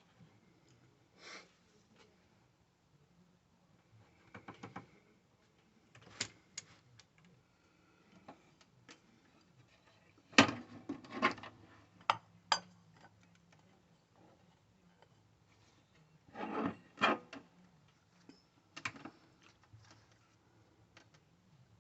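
Scattered clicks, knocks and clatter of tools and parts being handled at a workbench, with two louder clusters of knocks, one about halfway through and one about three-quarters of the way through.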